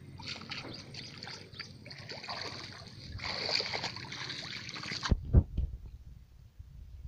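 Water splashing and dripping as a fishing net is pulled up and shaken in shallow river water. It stops abruptly about five seconds in, followed by a few low thumps.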